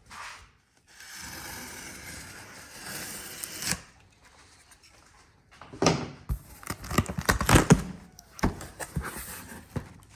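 A cardboard shipping box being opened: a long, steady rip of packing tape that ends abruptly, then a run of rustling, crinkling and knocks as the flaps and packing material are handled.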